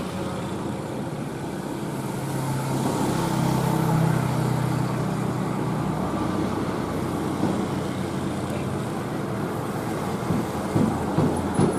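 Diesel engine of a loaded Mitsubishi heavy truck pulling uphill in low gear: a steady low engine drone that grows louder about four seconds in, with other road traffic around it.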